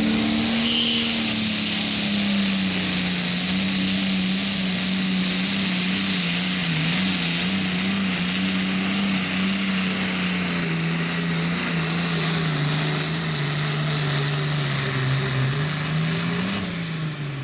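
International Harvester light limited super stock pulling tractor's turbocharged diesel engine at full throttle, loaded by the weight-transfer sled. The engine note sags slowly as the load builds and lifts briefly near the end, under a high steady whistle that comes in at the start and falls away as the run ends.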